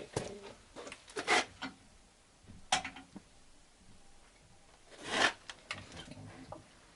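Scattered rubbing and scraping handling noises with a few sharp clicks, the loudest about a second in, near three seconds, and just after five seconds.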